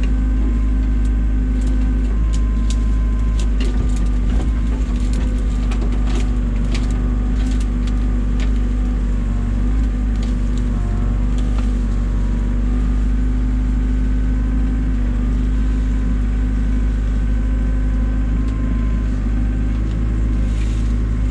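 Komatsu excavator's diesel engine running steadily, with scattered light clicks and knocks over it.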